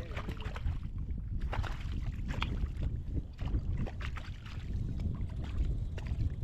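Wind buffeting the microphone as a steady low rumble, with water lapping and splashing against a kayak's hull in irregular short slaps.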